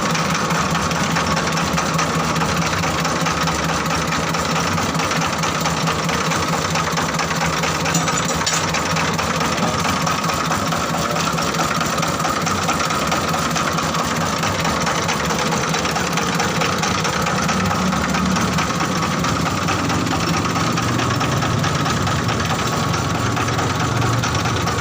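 Diesel engine running steadily, driving a mobile rice-milling machine, with a continuous even mechanical drone.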